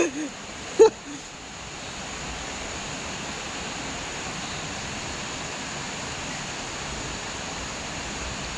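Steady rush of a stream running over rocks, with a short vocal exclamation about a second in.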